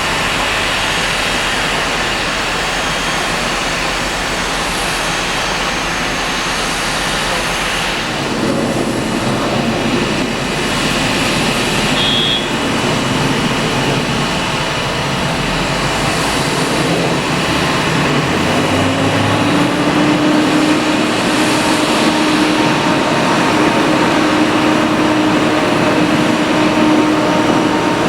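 Boeing 777-300 airliner's jet engines running, a steady rushing noise that grows slightly louder, with a low steady whine coming in about two-thirds of the way through.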